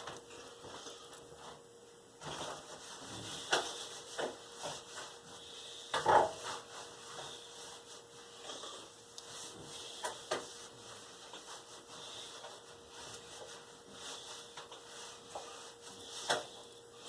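Quiet kitchen handling sounds: light rubbing and a few scattered knocks of objects being moved on a counter.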